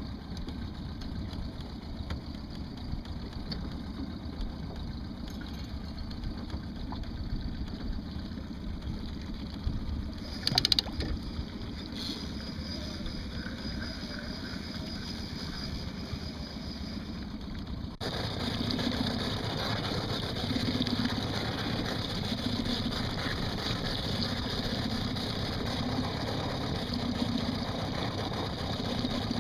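A fishing boat's motor runs steadily at trolling speed, with water washing along the hull. There is a brief clatter about ten seconds in, and the sound jumps louder about two-thirds of the way through.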